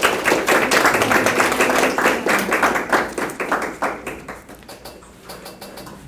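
Audience applauding, loudest for the first few seconds, then thinning out and dying away toward the end.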